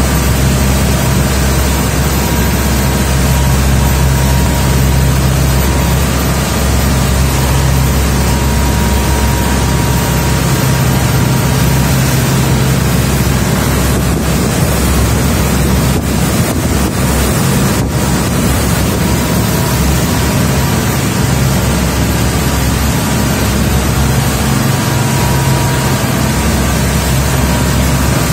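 Twin inboard engines of a Tiara 3500 Express motor yacht running steadily at a 23-knot cruise, a constant low drone under the rush of wind and water along the hull.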